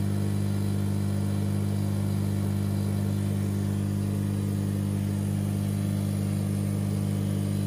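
Steady low electrical hum of running aquarium equipment, one even drone that does not change.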